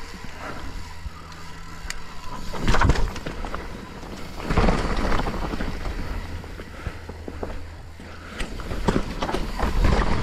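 Mountain bike riding down a rocky technical descent: tyres and frame clattering over rock with rapid small knocks, and heavy thuds from hard impacts, the loudest about three seconds in, with more around four and a half seconds and near the end.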